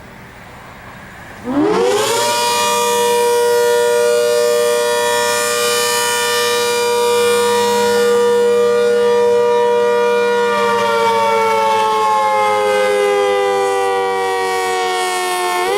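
ACA Hurricane 130 outdoor warning siren winding up from quiet about a second and a half in, then holding a loud steady pitch. From about two-thirds of the way through it slowly falls in pitch, and near the end it starts to wind up again in a rise-and-fall wail.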